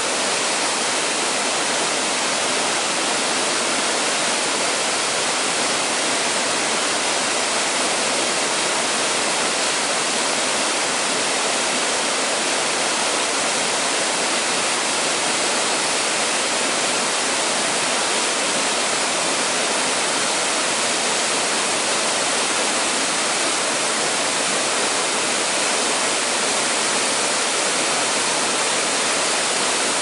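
Waterfall pouring over rock into a plunge pool: a steady, even rush of falling water, mostly hiss with little low rumble.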